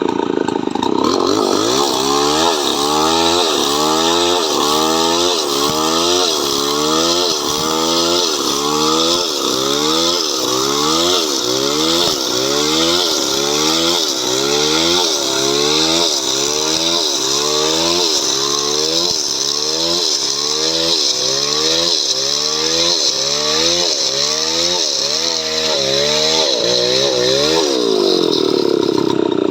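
Two-stroke chainsaw cutting through coconut wood, its engine pitch sagging under load and picking up again over and over, about once or twice a second. It runs at a steady higher pitch briefly at the start and again near the end.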